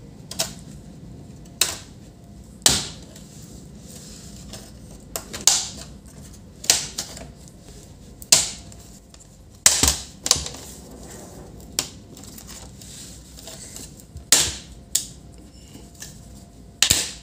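Plastic snap clips along the seam of an HP ProBook 440 G4 laptop case popping loose one after another as the palmrest is pried off the bottom cover with a plastic opening tool and fingers. A dozen or so sharp clicks and snaps at irregular intervals.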